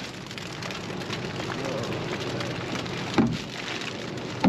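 Steady rain falling on the dumpster and the trash bags, with one sharp knock about three seconds in as the plastic tub is handled.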